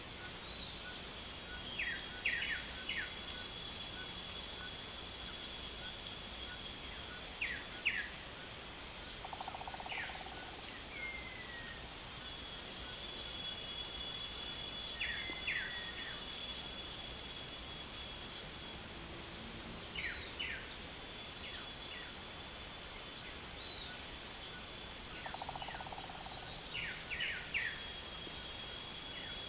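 Small birds giving short, quick chirps in clusters of two or three every few seconds, over a steady high drone of insects.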